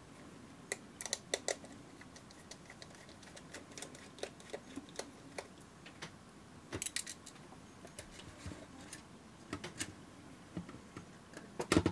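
Scattered light clicks and taps of tiny screws and a precision screwdriver being handled and set down during small-camera disassembly, with a small cluster about seven seconds in and the loudest clicks near the end.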